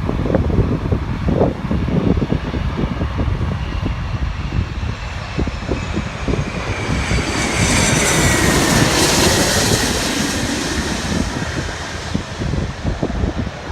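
Jet airliner passing overhead. A rush of engine noise builds to its loudest about two-thirds of the way through, with a whine that slides down in pitch as the plane goes by, over wind buffeting the microphone.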